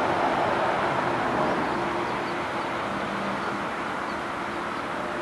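Boeing 787-8's General Electric GEnx turbofan engines running at taxi power as the airliner rolls past and turns away: a steady jet rush with a faint hum, slowly growing quieter.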